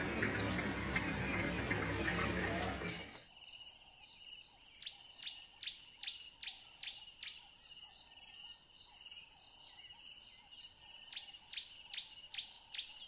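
Insects trilling in a steady high drone, with two runs of sharp chirps at about three a second. The first three seconds hold a louder, rough noise that cuts off suddenly.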